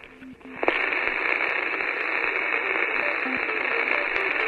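Radio-static sound effect for a glitching logo intro: a steady hiss starting about two-thirds of a second in, with short electronic beeps scattered through it.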